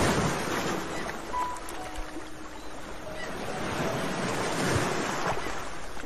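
Sea waves washing in and ebbing: one swell at the start, then another building to a peak about five seconds in.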